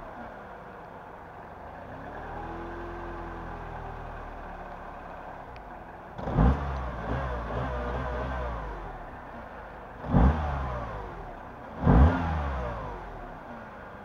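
Mini One's 1.6-litre naturally aspirated four-cylinder petrol engine idling, with a slow, gentle rise and fall in revs about two seconds in. Then three short, sharp throttle blips, about six, ten and twelve seconds in, each revving up quickly and dropping straight back to idle.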